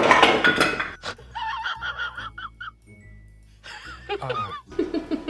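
Edited-in clip: a loud noisy burst about a second long, then short phrases of music with a high wavering voice, a brief near-quiet gap, and a man's voice speaking near the end.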